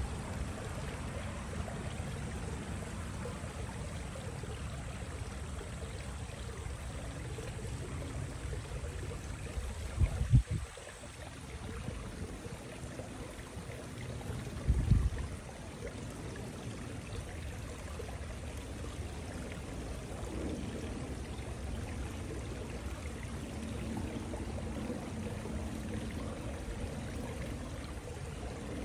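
Wind buffeting the microphone: a steady low rumbling noise, with two brief louder low thumps about ten and fifteen seconds in.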